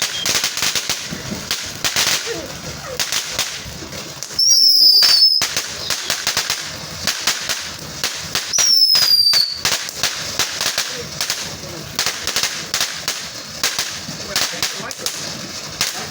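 Consumer fireworks going off: a rapid, irregular crackle of small pops runs throughout. About four and nine seconds in, a louder burst comes with a short, shrill falling whistle.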